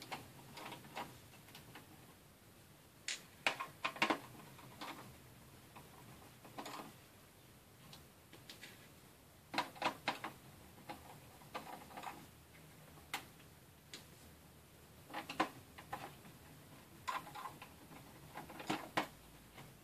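Irregular small clicks and taps of a screwdriver working screws out of an Asus X51R laptop's plastic case, coming in short clusters every few seconds.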